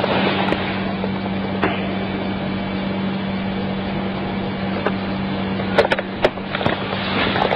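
Steady hiss with a low hum from the recording, and a few sharp knocks or clicks close together about six seconds in, with another near the end.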